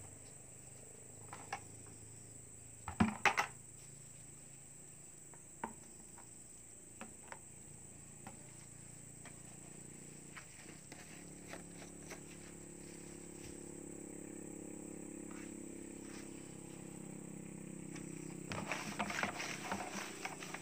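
Plastic paint buckets being handled: scattered clicks and knocks, with a loud cluster about three seconds in and a dense run of rattling near the end as a bucket is tipped. Under it a steady high insect drone and a low steady hum that builds from about halfway.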